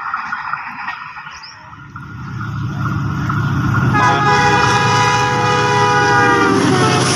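Diesel locomotive of an express train approaching at speed: a low rumble grows, then its horn sounds one long multi-tone blast from about four seconds in, dropping in pitch near the end as the locomotive passes.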